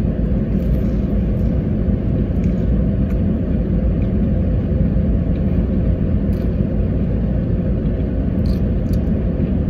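Steady low rumble inside a parked car's cabin, typical of the engine idling, with a few faint mouth clicks from someone chewing a sandwich.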